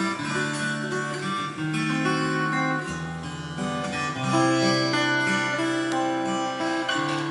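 Acoustic guitar playing a slow instrumental introduction, held notes changing every second or so.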